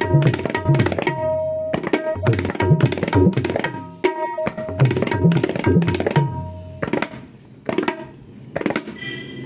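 Tabla played solo, an old Benarasi tukda: quick strokes on the treble drum ringing at a steady pitch, mixed with deep bass strokes on the bass drum. The strokes thin out and quieten late on, then pick up again at the end.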